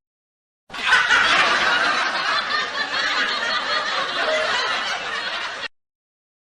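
A crowd laughing together, a stock laugh-track sound effect, lasting about five seconds and cutting off abruptly.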